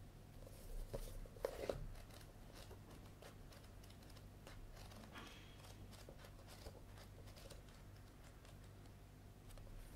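Paperback manga volume being handled and its pages flipped by hand: a few louder paper rustles and taps a second or two in, then soft page flicks and riffles.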